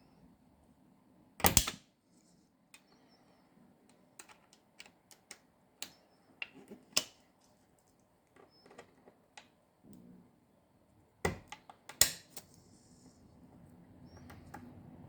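Irregular sharp clicks and taps of small repair tools on a smartwatch's metal internal parts, with the loudest clicks about a second and a half in and again near the end.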